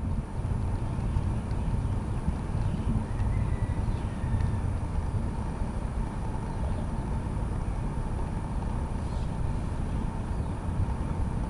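Wind rumbling and buffeting on the microphone, a steady low rumble that flutters in strength.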